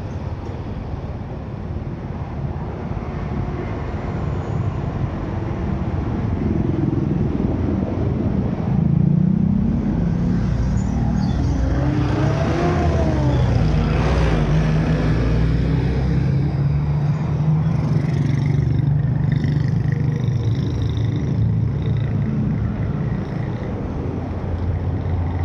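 Car driving along a road: a continuous engine and road rumble. The engine note rises and falls near the middle as speed changes.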